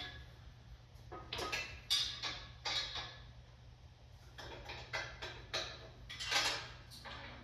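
Irregular metal clanks and clicks, some ringing briefly, from tools and metal parts being handled, over a steady low hum.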